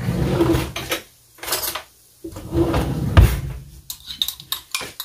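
Kitchen handling noises with a dull thump a little over three seconds in, then a metal spoon clinking and scraping in a glass jar of minced garlic, several quick clinks near the end.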